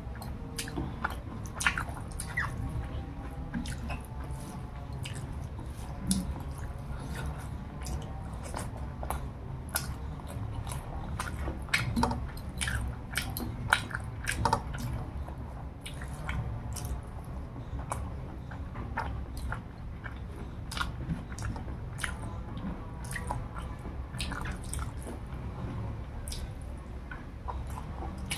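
A person chewing a mouthful of rice and curry close to the microphone, with irregular wet mouth clicks and smacks, over a steady low hum.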